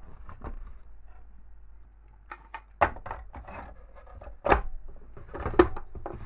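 Metal enclosure cover being slid onto an electronics project box and pressed into place: several sharp clacks with light scraping between them, the loudest two about four and a half and five and a half seconds in.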